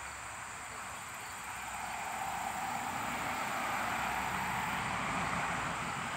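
Outdoor ambience of insects chirping steadily, with the noise of a vehicle growing louder from about two seconds in.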